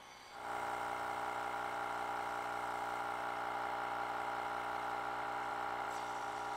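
Cordless 21 V battery tire inflator's compressor running steadily as it pumps up a flat car tire toward its 32 psi set point, a constant whirring hum that comes in about half a second in.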